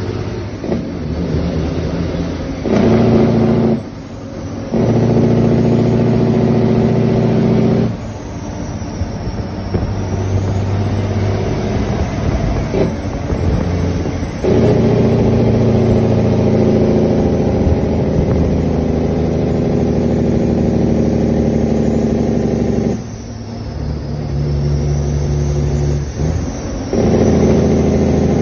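Western Star truck's diesel engine heard from inside the cab, pulling under load on the road. It runs loud and steady in long stretches, with several short drops in level in between.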